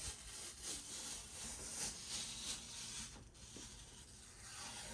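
Quiet rustling and peeling of adhesive tape backing being pulled off by hand, in a few soft swells.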